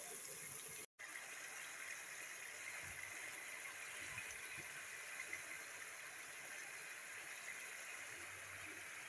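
Turnip and meat curry simmering in a wok, a faint, steady bubbling hiss, cut off briefly about a second in.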